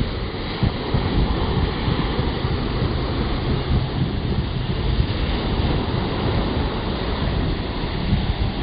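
Wind rumbling and buffeting on the microphone in irregular gusts, over the steady wash of small waves breaking on a sandy beach.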